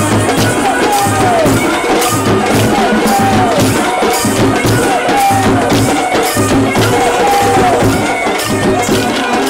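Telugu kolatam folk music: a steady rhythm of sharp wooden-stick strikes over a low drum beat, with a melodic phrase that glides downward and repeats about every second and a half.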